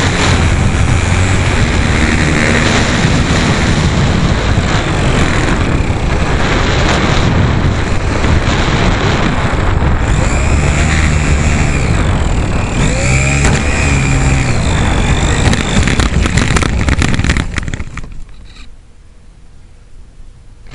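Electric motor and propeller of a radio-controlled Super Cub model airplane whining, the pitch rising and falling as the plane passes, over a loud steady rush. Near the end the sound falls away sharply.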